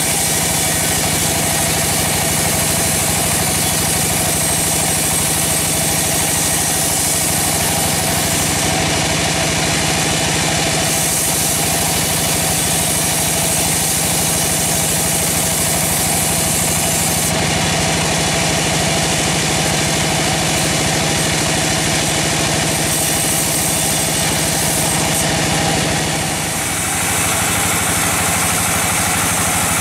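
Large band sawmill running steadily while its blade rips lengthwise through a big log: a constant machine hum under a hissing sawing noise. The sound dips briefly near the end.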